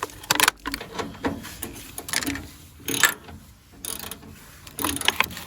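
Hand ratchet wrench clicking in irregular bursts as a bolt is worked loose and backed out.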